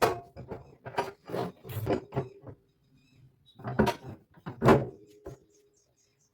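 Wooden pieces knocking and scraping as they are handled in a woodworking job, an irregular run of knocks in the first couple of seconds, then after a short lull two louder knocks, some with a brief ringing tone.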